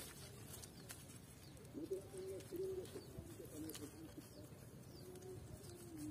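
Faint bird calls: a run of low pitched cooing phrases from about two seconds in, with a few soft clicks.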